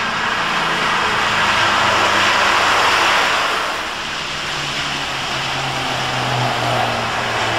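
Road traffic in heavy rain: the steady hiss of tyres on a wet road and falling rain. It swells, dips briefly about four seconds in, then builds again as vehicles come close. Underneath runs a low hum from the approaching vehicles that rises slightly in pitch in the second half.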